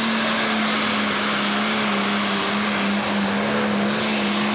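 Pro Stock pulling tractor's turbocharged diesel engine at full throttle, dragging a weight-transfer sled down the track, holding one steady high engine note.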